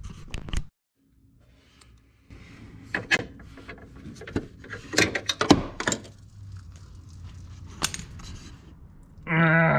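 Scattered knocks, clicks and light rattles of hand tools and parts being handled during the refitting of the horn and wheel liner, with a brief, loud pitched cry with a wavering tone near the end.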